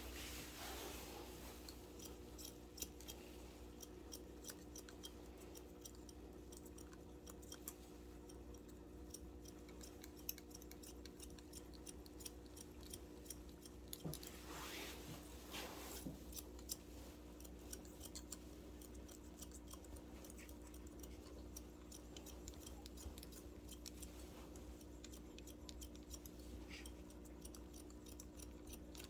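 Long barber's shears cutting hair in a fast, irregular run of light snips, faint over a steady low hum.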